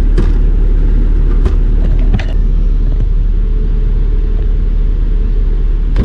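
A bus's diesel engine idling with a steady low rumble. A few light knocks sound over it, the first three within about the first two and a half seconds and one more near the end.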